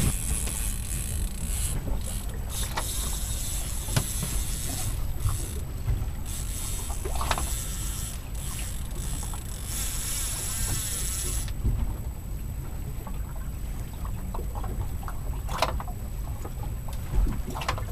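Wind buffeting the microphone on an open boat, with the choppy bay water sloshing against the hull. A high hiss cuts off suddenly about two-thirds of the way through, and there are a few light knocks.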